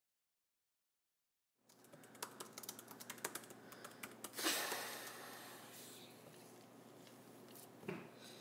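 Quiet typing on a MacBook laptop keyboard: a few scattered key clicks over faint room tone, with a short hissing rush about halfway through as the loudest sound.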